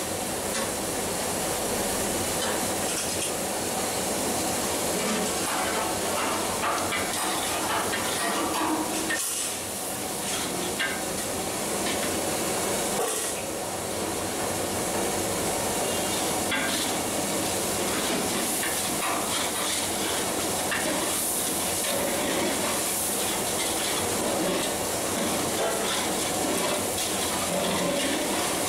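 Masala frying and sizzling steadily in a large metal pot over a gas flame, with a metal ladle stirring and scraping through it.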